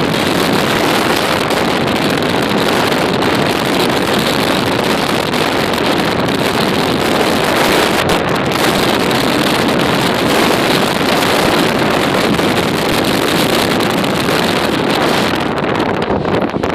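Hurricane wind blowing hard across the microphone: a loud, steady rush of noise with no breaks.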